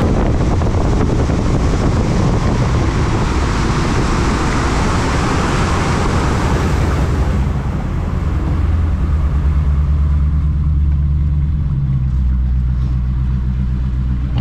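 Bay boat under way: a loud rush of wind and water over the steady drone of its outboard engine. About eight seconds in the rush falls away, leaving mostly a steady low engine hum.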